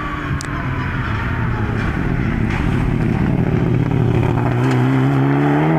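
Rally car engine approaching at speed, growing steadily louder as it nears; late on the engine note comes up clear and rises in pitch under hard acceleration as the car passes close.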